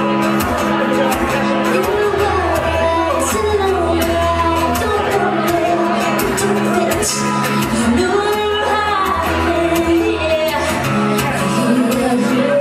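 Live pop song: a woman singing while playing acoustic guitar, over a steady low bass.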